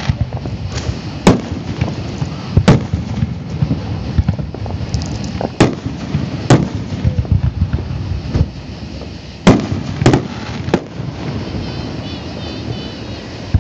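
Aerial fireworks shells bursting, about seven sharp booms at irregular intervals, two of them close together about ten seconds in, over a steady low rumble.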